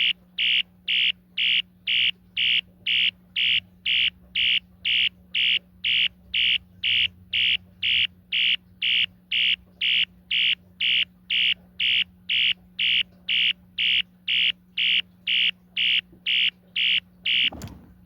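Mid-1980s Wheelock ES-DL1-WS-24DC electronic fire alarm horn sounding in march time: a high-pitched electronic tone pulsing on and off about twice a second. It stops near the end.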